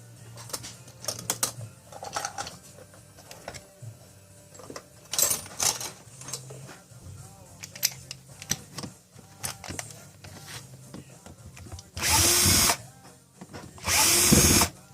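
Cordless drill/driver handled with scattered clicks and knocks, then its motor run in two short bursts near the end, each winding down as it stops.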